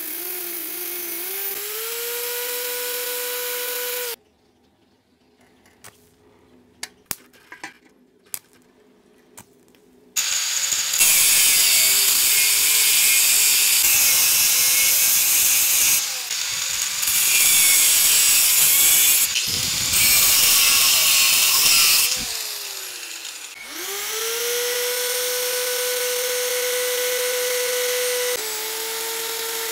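Electric motor driving an abrasive wheel, running with a steady whine, then a few clinks in a quiet pause. Then a loud hissing grind as an abrasive disc cuts through steel threaded rod, for about twelve seconds. Near the end the motor winds down, spins back up and runs with a steady whine while a threaded steel rod is ground against the wheel.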